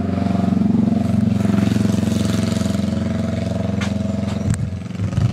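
A motor vehicle's engine running steadily, a low even drone that holds its pitch, with a few dull thumps near the end.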